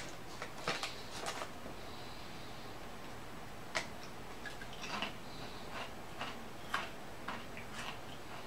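Lay's potato chips crunching as they are bitten and chewed: a scatter of faint, short crackles spread irregularly through the stretch.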